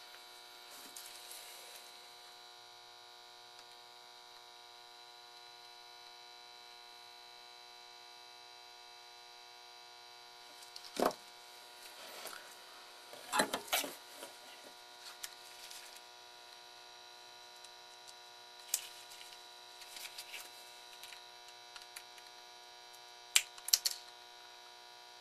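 Steady electrical mains hum with a few scattered clicks and taps, then near the end two sharp snips of flush cutters trimming capacitor leads on a circuit board.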